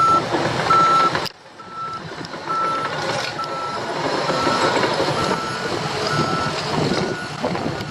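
Back-up alarm of heavy construction equipment beeping steadily, one tone a little more than once a second, over a running engine. The sound drops suddenly quieter about a second in, and the beeping carries on more faintly.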